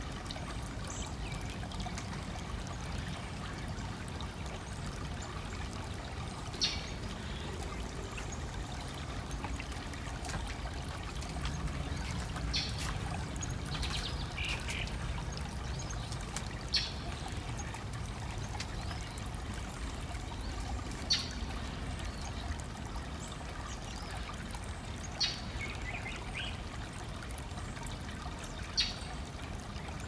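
A creek's water trickling and flowing steadily. Short high chirps stand out above it about every four seconds.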